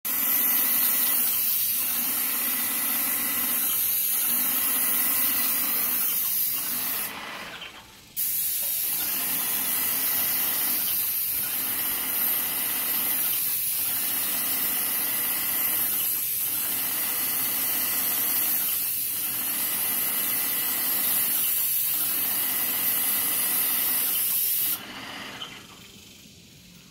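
Airless paint spray gun spraying paint onto a brick wall: a steady hiss with a brief dip about every two and a half seconds. The spray stops for about a second some seven seconds in and cuts off about two seconds before the end.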